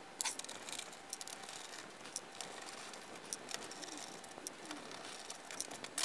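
Faint, irregular small clicks and taps of a precision screwdriver backing out the screws that hold a Commodore 128D keyboard in its plastic case, with light knocks as the keyboard's metal back panel is handled.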